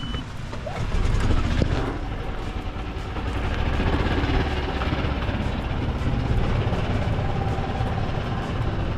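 Golf cart driving along, a steady low rumble that picks up about a second in as it gets moving.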